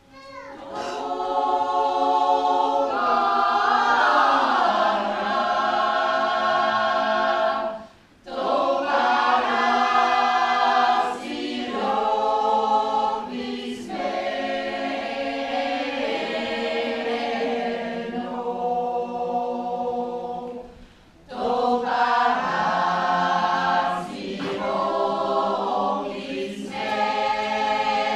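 Mixed choir of men and women singing in several parts, in long sustained phrases with two short breaks, about eight and twenty-one seconds in.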